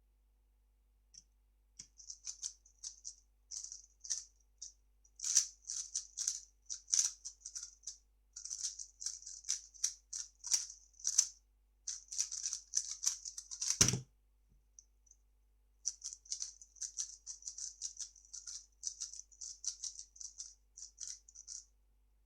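A 3x3 speedcube being turned fast by hand: rapid, uneven runs of plastic clicks and rattles. There is a single low thump about fourteen seconds in, then a short pause before the turning starts again.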